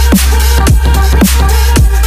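Electronic dance music with a heavy sustained bass line and a punchy kick drum about twice a second, each kick dropping sharply in pitch, over bright percussion and synth tones.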